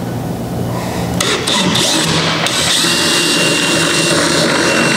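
Power drill running as it bores a hole through the kayak hull for a cable pass-through. It starts about a second in and settles into a steady high whine.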